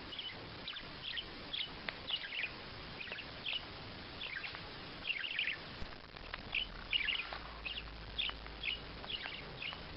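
A small bird chirping in a steady run of short, high calls, about two a second.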